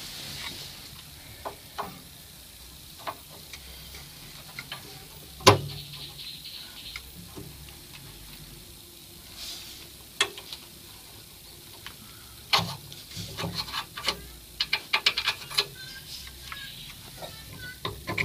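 Scattered clicks and knocks of a Grundfos circulating pump and its brass pipe fittings being handled and fitted into copper pipework by hand. One louder knock comes about five and a half seconds in, and a quick run of clicks comes in the second half.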